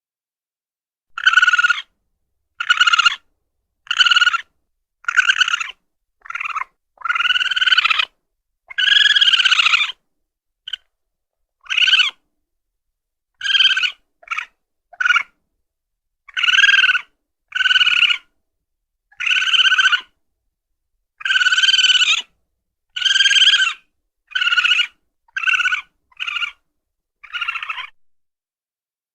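A raccoon chittering: about twenty short, high, pitched calls in a row, each under a second, with a pair of longer calls partway through and clean silence between calls.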